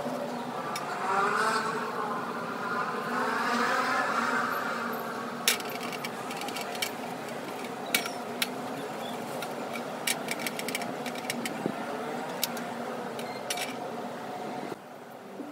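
An engine-like drone wavering up and down in pitch for the first few seconds, then a run of scattered sharp clicks and light knocks as a carbon steel pan is wiped and handled on a portable gas stove.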